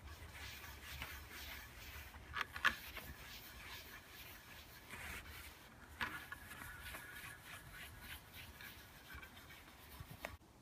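Cloth rubbing against a wooden bowl spinning on a 1977 Coronet Major lathe, over a low motor hum. A few sharper scuffs stand out, the loudest between two and three seconds in, and the sound cuts off just before the end.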